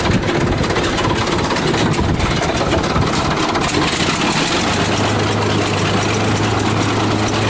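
Heavy engine running at idle, with a steady low drone setting in a little past halfway.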